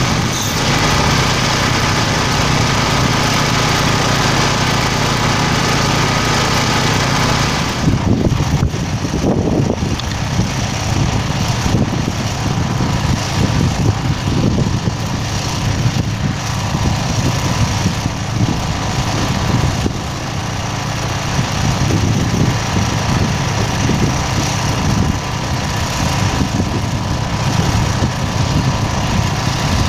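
A small engine running steadily. About eight seconds in the sound changes and becomes rougher and more uneven.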